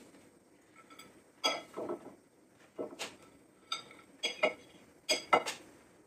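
Metal pliers clinking and knocking against a ceramic plate, about eight sharp, ringing clinks at irregular intervals, as a heat-softened IC chip's plastic package is broken apart over it.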